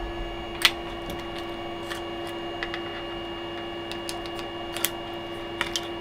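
Sharp, scattered clicks of a padlock being worked by hand, its shackle and mechanism operating freely after salt-spray corrosion testing, over a steady low hum.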